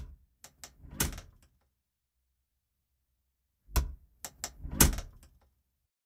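A solid wooden interior door opened and closed by its handle, twice: a handle-and-latch click, a few small clicks, then the door shuts with a thud about a second later. The second close, near the end, is the louder.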